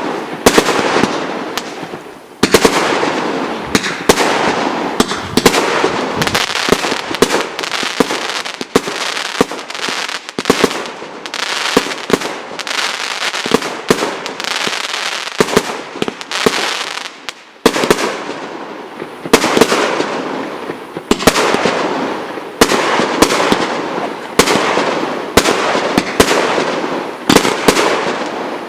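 MB121 'Kavkaz' firework cake, a 49-shot battery of 30 mm calibre, firing its shots in quick succession. Sharp bangs and crackling follow one another, with two short lulls, about two seconds in and past the middle.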